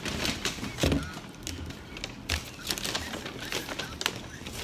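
Food packaging being handled: crinkling and rustling, a plastic-sealed bottle and then a paper takeout bag, made up of many small irregular crackles and clicks.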